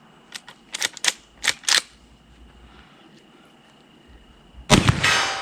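A few sharp metallic clicks as a Henry Big Boy .44 Magnum lever-action rifle's lever is worked to chamber a round. About three seconds later comes a single loud .44 Magnum rifle shot with a short echoing decay.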